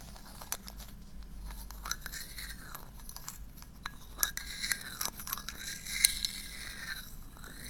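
Close-miked ASMR scratching and tapping on an object held at the microphone: slow brushing strokes every second or two, with scattered sharp clicks and taps, the loudest about six seconds in.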